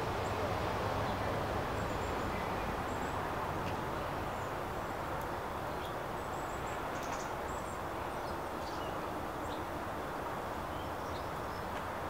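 A steady low outdoor rumble, with faint, short, high chirps of small songbirds scattered throughout.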